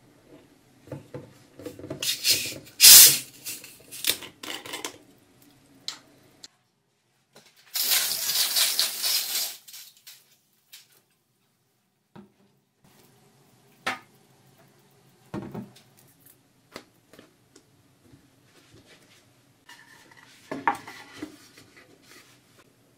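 Kitchen handling noises: a plastic bottle of sparkling water being handled and opened, with clatter and knocks of metal cookware on a gas stove, one sharp loud knock early, and a hiss lasting about a second and a half shortly before midway.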